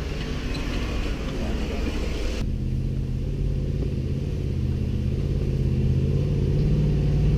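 An off-road 4x4's engine running with a steady low drone. About two and a half seconds in, the sound changes abruptly and the engine drone becomes stronger, then slowly grows louder.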